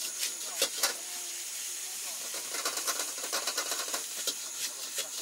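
Rice being stir-fried in a wok over a high gas flame: a steady hiss of the burner and sizzling food. A metal ladle and spatula scrape and clink against the wok, quickly and repeatedly from about two and a half to four and a half seconds in.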